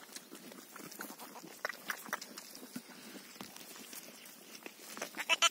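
Ewe licking and mouthing her newborn lamb in dry grass: soft wet smacking and rustling, with a short, louder rustle near the end.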